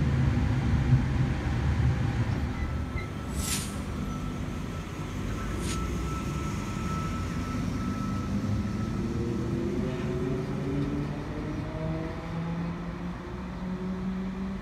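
Double-deck intercity electric train (NSW V set): a low rumble from on board at first, then the train at a platform pulling away, its traction motors whining and rising in pitch from about nine seconds in. Two short hisses come a few seconds in.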